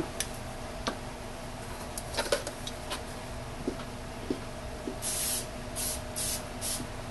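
Aerosol can of canola cooking spray spraying into plastic soap molds: one hiss of about half a second, then three short hisses, starting about five seconds in. A few light knocks of the plastic molds being handled come before.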